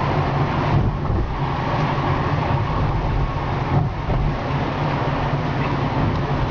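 Car engine running with tyre and road noise, heard from inside the cabin while driving: a steady low hum under an even rush of noise.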